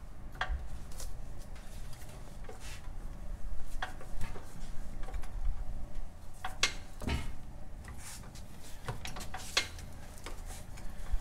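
Scattered knocks and clicks of a metal floor-jack handle being handled and set against the jack, a dozen or so irregular strikes, the loudest about four and seven seconds in, over a low steady hum.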